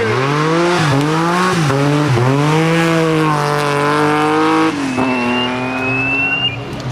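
Rally car engine revving hard and shifting up through the gears, its pitch climbing and dropping several times. About five seconds in it falls to a steadier, lower note, and a thin high squeal sounds over it near the end.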